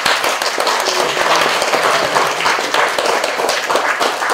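A crowd applauding: many hands clapping in a dense, steady patter.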